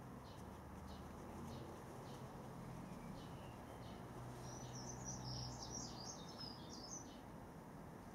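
Faint bird chirping: a quick high twittering phrase lasting a couple of seconds about halfway through, over quiet room tone with a low hum and faint scattered ticks.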